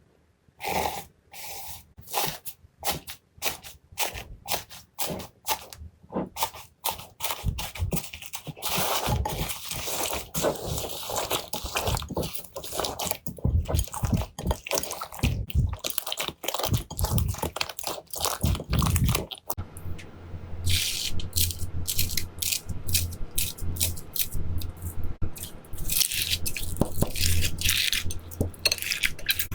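Slime being squeezed and pressed by hand, giving rapid crunchy crackling and popping. About two-thirds of the way in, a low steady hum joins the crackles.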